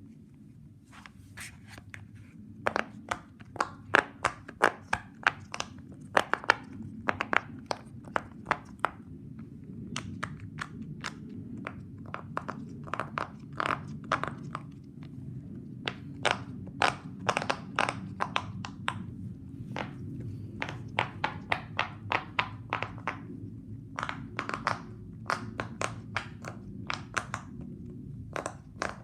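Fidget toys being worked by hand: irregular runs of sharp clicks and pops, several a second, broken by short pauses, over a low steady hum.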